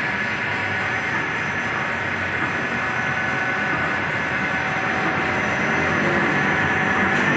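1988 Miyano BNC-3C CNC lathe powered up and idling: its hydraulic pump and motors hum steadily under a constant high whine, growing a little louder near the end.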